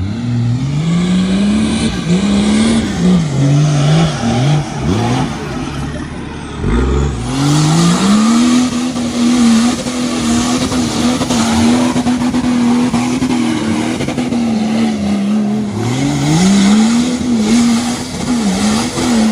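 Off-road 4x4's engine revved hard under load, its pitch climbing and dropping again and again, then held high for several seconds before falling and rising once more near the end.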